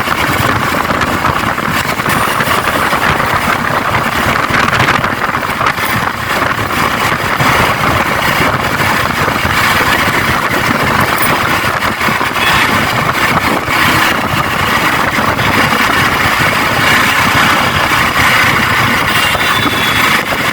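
Motorcycle engine running with steady road and traffic noise, heard while riding.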